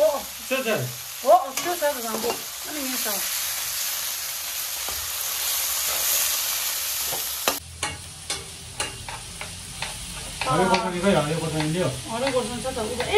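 Meat frying in oil in a metal wok, sizzling steadily as a perforated metal ladle stirs and scrapes it against the pan. The sizzle cuts off suddenly a little past halfway, leaving a few sharp ladle clicks.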